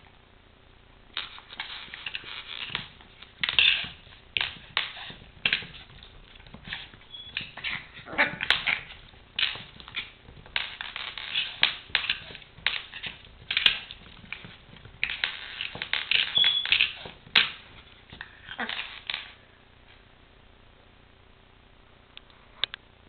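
Chihuahua puppy playing with a small toy car on a tile floor: a rapid, irregular run of short clatters and scrapes as the car and her claws hit the tiles, with brief puppy whimpers and yips mixed in. It stops a few seconds before the end.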